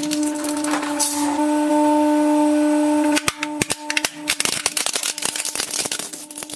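Hydraulic press crushing a slime antistress ball: the press's steady low hum with a dense run of sharp crackling clicks and pops, which thicken about three seconds in as the hum weakens.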